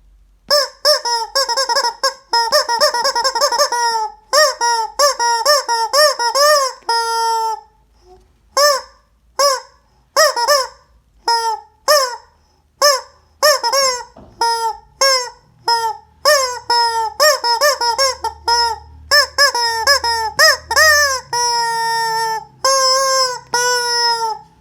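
Rubber chicken toy squeezed over and over, giving a long run of honking squawks that bend in pitch. Most are short and quick, some are spaced apart, and a few are held longer, one about seven seconds in and several near the end.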